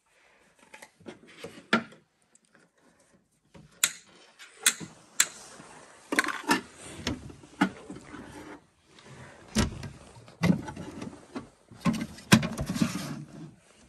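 Irregular clicks, knocks and clatter of a wooden play kitchen being handled: the toy oven door is opened and toy cookware is rummaged inside.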